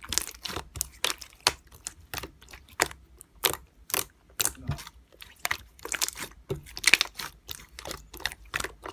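Slime being squeezed and pressed by hand, giving an irregular run of sharp clicks and pops, several a second.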